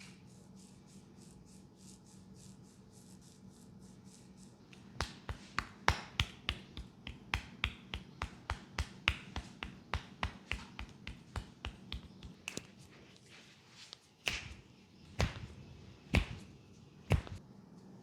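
A massage barber's hands making sharp snaps and slaps during an Indian head massage. A quick run of crisp cracks, about three a second, starts about five seconds in, then four louder single cracks come about a second apart near the end.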